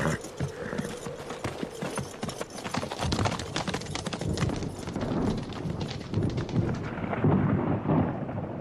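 Horses galloping, a rapid, irregular run of hoofbeats on dirt.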